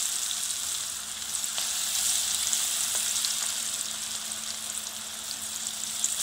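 Chickpea, potato and onion fritter batter deep-frying in hot mustard oil in a kadhai: a steady sizzling hiss with scattered small pops and crackles.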